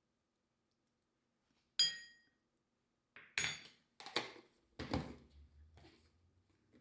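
Kitchenware clinking and knocking: one sharp, ringing clink about two seconds in, then a handful of clattering knocks, as of dishes or utensils being handled.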